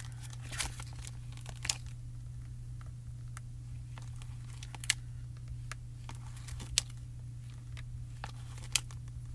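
Small clear photopolymer stamps being peeled off a clear acetate sheet and set down on cardstock: light plastic crinkling and scattered small clicks, with three sharper ticks in the second half, over a steady low hum.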